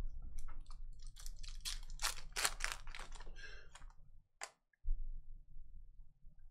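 Foil trading-card pack wrapper crinkling and tearing as it is opened by hand: a quick run of crackles for about three and a half seconds, then a single sharp tick a little over four seconds in.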